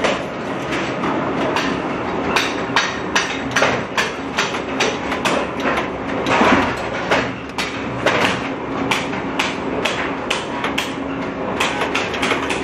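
Rocker-arm spot welder clacking over and over as its copper electrodes close on stainless steel sheet, welding brackets onto the stove body. The strikes come irregularly, several a second at times, over a steady machine hum.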